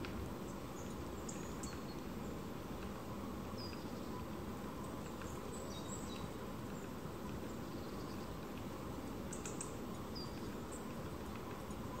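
Faint, high, thin calls of small woodland songbirds: short chirps and brief falling tseep notes scattered through, over a steady low background rumble.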